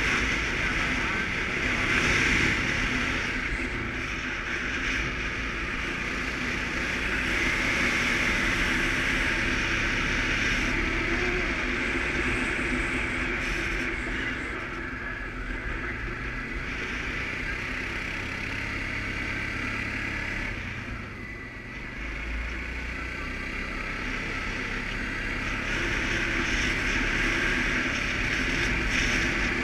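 Suzuki KingQuad ATV engine running while riding along, with steady road noise. The engine eases off briefly about two-thirds of the way through, then picks up again.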